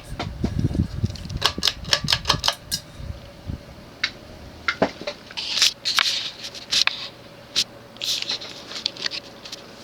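Ceiling fan pull-chain switch clicked over to high speed, with a quick run of sharp clicks and rattles and a low rumble in the first few seconds, then scattered clicks. Under it runs the steady hum of the Evergo S-vent fan's cast-aluminum spinner motor.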